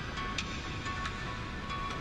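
Quiet background music with a steady tone and light ticks.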